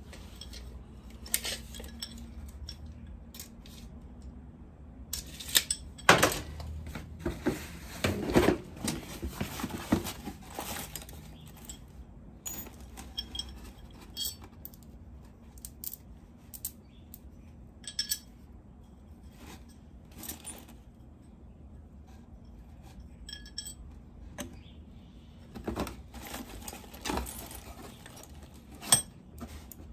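Loose metal hardware and hand tools clinking and clattering as they are handled and sorted, in scattered bursts, busiest about a quarter of the way in and again near the end.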